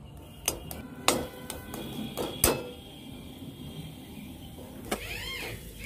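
A metal spatula knocks and scrapes against a metal kadai a few times, as a sticky filling is scraped off it. Near the end a cat meows twice.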